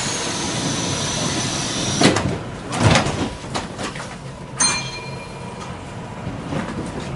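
Tyne and Wear Metro train doors closing: a hiss of air with a steady high tone for about two seconds, then two heavy thuds as the doors shut, followed by a few clicks.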